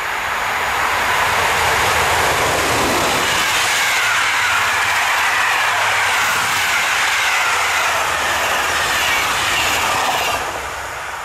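Passenger train hauled by a NEWAG Griffin EU160 electric locomotive passing close by: wheel-on-rail noise builds as it arrives, holds steady while the coaches go by, and drops off sharply about ten seconds in as the last coach passes, then fades.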